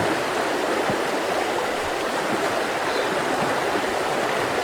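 Mountain river rushing steadily over rocks, with small bubbling gurgles in the flow.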